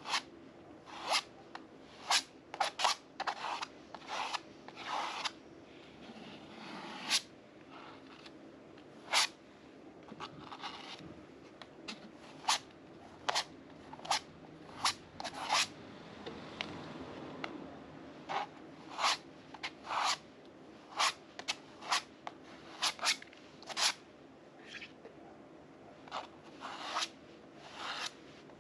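Metal palette knife scraping and spreading modeling paste across a stretched canvas in many short, quick strokes at an uneven pace.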